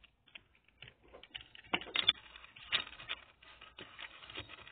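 Plastic parts of a Transformers Generations Deluxe Cybertronian Bumblebee figure clicking and rattling as its joints are folded and snapped into place by hand, in a string of small irregular clicks, the loudest about two seconds in.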